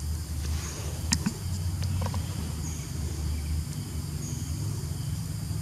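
Outdoor ambience: a steady low rumble with short high chirps repeating every couple of seconds. A few sharp clicks come between one and two seconds in.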